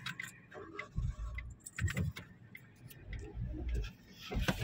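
Car cabin while driving: a low engine and road rumble that comes and goes, with scattered light clicks and knocks.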